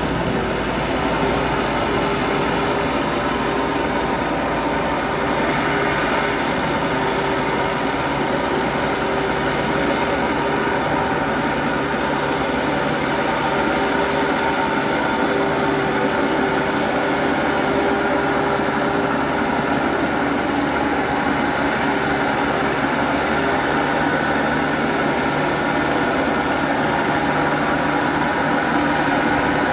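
Small farm tractor's diesel engine running steadily under load, driving a rotary water-channel digging head through the paddy mud.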